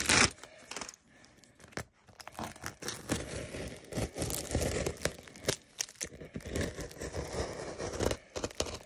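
Clear plastic wrapping on a parcel being cut and torn off, crinkling and ripping in irregular bursts, with a loud rip right at the start and a quieter pause of about two seconds after it.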